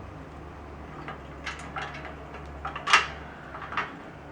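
Light clicks and knocks of the sanitizer stand's rods and parts being handled and fitted together, a handful of them, the loudest about three seconds in.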